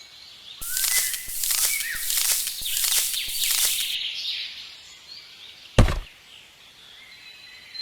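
About five quick, evenly spaced scraping strokes, then a single sharp knock a couple of seconds later.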